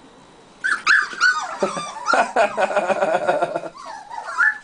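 Buff American Cocker Spaniel puppies whining and yipping, several at once, in high, wavering cries that start about half a second in. They are begging to be fed at dinner time.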